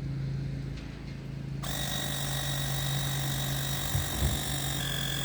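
Cordless portable tire inflator starting up about a second and a half in and running with a steady high motor whine and hiss as it pumps a flat wheelbarrow tire toward its preset 30 PSI. A steady low hum runs underneath, with a couple of dull thumps near the end.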